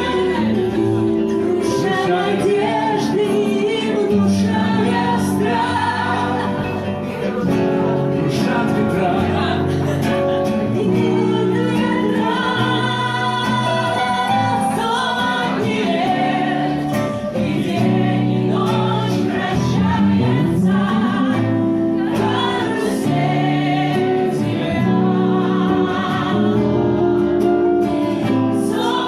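A song with singing voices over instrumental backing.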